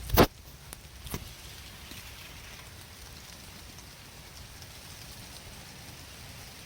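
Steady rain falling on a metal roof, with a loud sharp knock just after the start and a fainter one about a second in.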